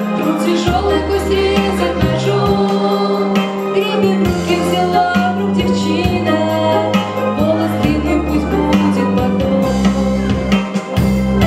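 A woman singing a song into a handheld microphone, amplified, over an instrumental accompaniment with a steady bass line.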